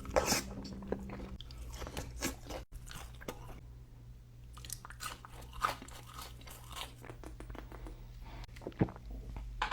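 Close-up chewing and biting of fast food, with irregular wet crunches and mouth clicks, the loudest bite just after the start.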